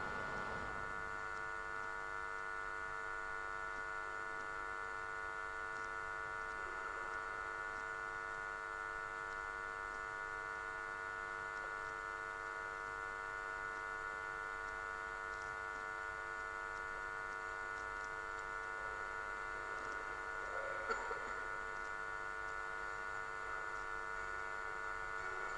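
Steady electrical mains hum made up of several fixed tones, interference picked up in the audio feed. A brief faint sound comes near the end.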